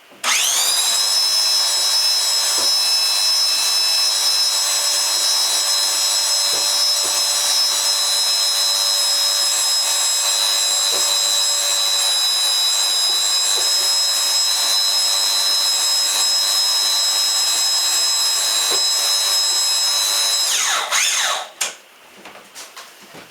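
Electric winch motor starting abruptly and running with a steady high whine for about twenty seconds, hoisting a homemade wooden elevator loaded with a refrigerator up to the second floor. Near the end it shuts off and winds down with a falling pitch.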